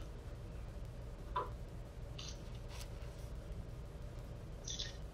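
Open video-conference line: a steady low hum, with a short click and a few brief high-pitched chirps.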